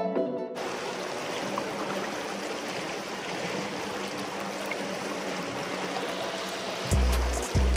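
Shallow river current rushing and rippling steadily around a wader's legs, heard close at the water's surface. Music fades out in the first half second, and music with deep bass notes comes in near the end.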